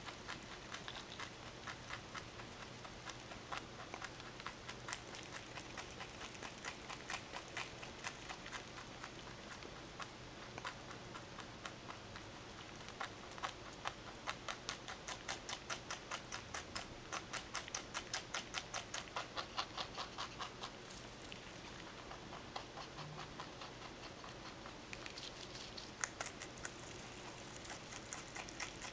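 Mini-rex rabbit chewing cilantro stems: a fast, even run of crisp crunching clicks, about four or five a second, loudest around the middle. The chewing eases off for a few seconds a little past two-thirds of the way through, then starts again near the end.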